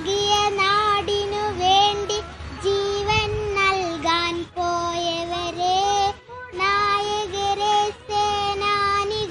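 A young girl singing solo, holding long notes with short breaths between phrases.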